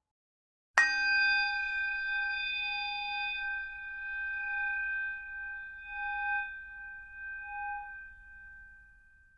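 A single metal bell struck once, then left to ring out and fade over about eight seconds, its lowest tone pulsing slowly as it dies away.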